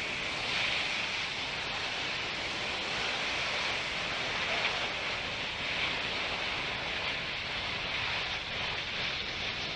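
Lilium 5th-generation demonstrator eVTOL's 36 electric ducted fans in hover at zero airspeed as it descends to land: a steady, even rushing hiss, strongest in the upper-middle range, with no engine note.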